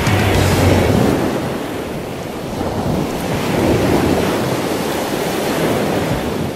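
Surf washing onto a sandy beach: a steady rush of breaking waves that swells and ebbs.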